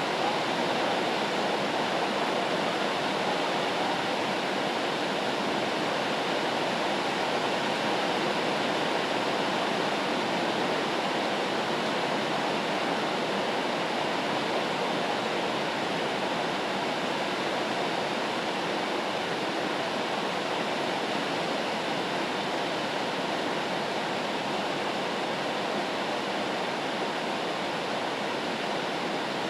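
Rain white noise: a steady, even hiss that does not change.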